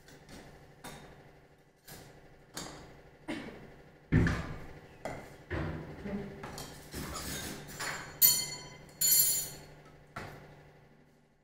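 Dishes and cups being set down and moved about on a dining table: a string of knocks and clinks, roughly one a second, with two brighter ringing clinks of crockery near the end.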